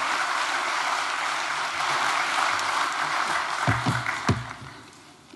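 Audience applause that dies away about four seconds in. Near the end come a few dull low thumps, as of a microphone or podium being handled.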